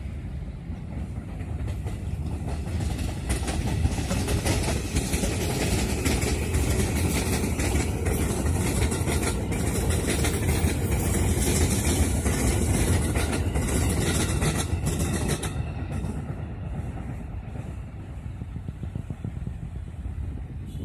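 KRL electric commuter train passing close by: a steady rumble of steel wheels on the rails with rapid clicking, swelling over the first few seconds and fading after about fifteen seconds as it draws away.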